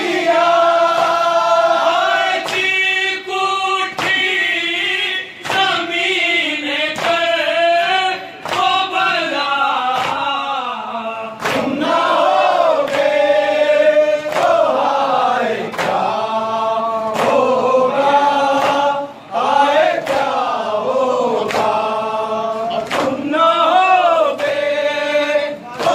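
A noha, a Shia Muharram mourning lament, is led by a male reciter on a microphone, with a group of men chanting the refrain together. Sharp chest-beating slaps of matam fall roughly once a second through the singing.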